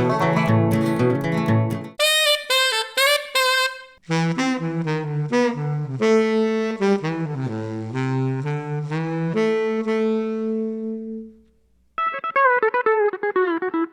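Instrumental music that changes style partway through. A busy plucked passage gives way to a melody with long held notes. That melody fades out about 11 seconds in, and after a brief gap a new wavering lead line starts.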